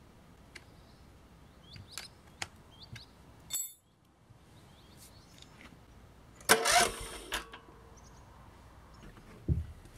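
Small metallic clicks and clinks as copper cable ends are fitted onto the terminals of small lead-acid batteries. Past the middle comes a louder harsh noise lasting under a second with a brief whine after it, and a low thump near the end.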